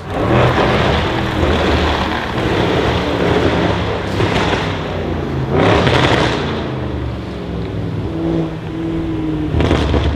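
Audi RS6 C7's twin-turbo V8 through a decatted Milltek exhaust, running loud with several surges: near the start, about four seconds in, around six seconds and again near the end.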